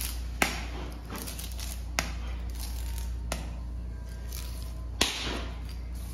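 Long tuna knife drawn along the back of a bluefin tuna, cutting through skin and flesh: four sharp clicks of the blade, the first and last each followed by a short rasp, over a steady low hum.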